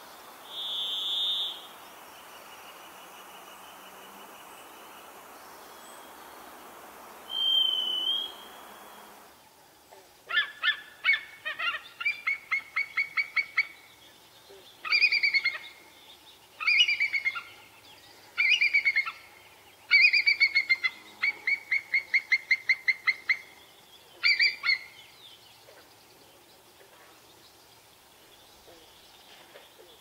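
A varied thrush sings two long, steady whistled notes, each at a different pitch. Then a bald eagle calls in several bursts of rapid, high, piping notes.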